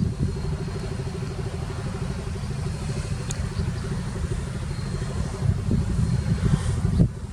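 Heavy diesel engine of earthmoving machinery running steadily, a low pulsing drone.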